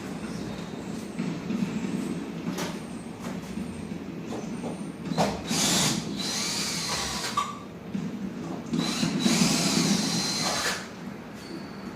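Cordless drill/driver running in two spells of about two seconds each, a steady whine that most likely marks screws being backed out of the platform, with scattered clicks and knocks from handling the wood and tool around them.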